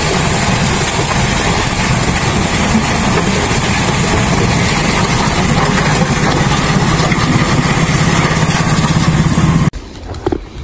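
An engine running steadily and loudly, close by. It cuts off suddenly near the end.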